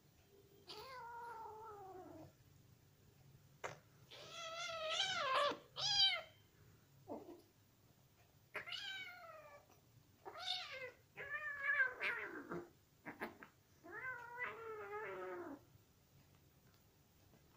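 Cats meowing and crying out while a mother cat and her kitten play-fight roughly: about eight drawn-out calls with quiet gaps between them, the first falling in pitch and several wavering.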